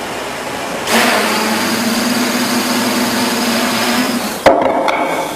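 Quadrotor propellers and motors whirring steadily in flight: a hissing whir with a steady hum, growing louder about a second in. A sharp click comes near the end, and the whir then drops to a quieter hum of a different pitch.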